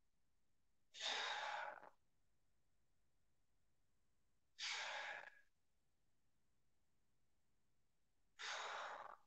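A man taking three deep, audible breaths, each about a second long and some three to four seconds apart. They are paced breaths, one with each rep of a seated spinal-twist stretch.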